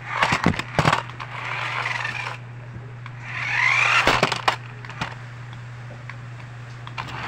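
Remote-control toy monster truck's electric motor whirring in two spurts as it drives over a tiled floor, the second rising in pitch, with a few sharp clicks and knocks from its plastic body and wheels.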